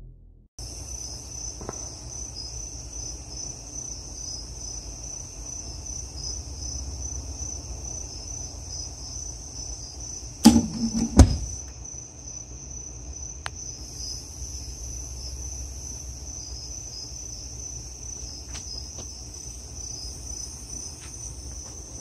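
Crickets chirping steadily. Near the middle come two loud, short pops less than a second apart.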